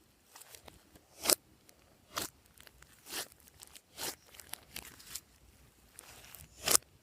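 Glossy slime being squeezed and worked by hand, giving short, sharp crackling pops about once a second. The loudest come a little after a second in and near the end.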